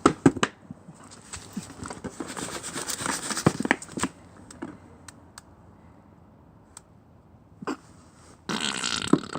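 A carton of half-frozen, slushy milk being squeezed and knocked, crackling and clicking in the first few seconds. Near the end comes a loud gurgling rush as the slush is forced out of the carton.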